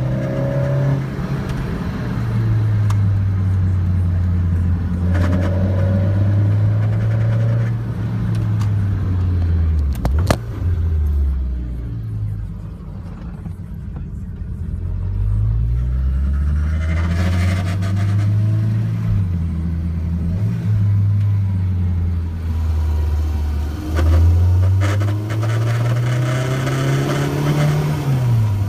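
Toyota MR2 (ZZW30) with a 2ZZ four-cylinder engine being driven. The engine note climbs and drops several times through gear changes. There is one sharp knock about ten seconds in.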